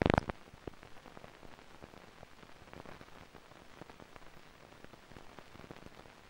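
Faint crackle and hiss of an old 1970s film soundtrack, with scattered clicks and pops. A brief loud burst of noise comes right at the start.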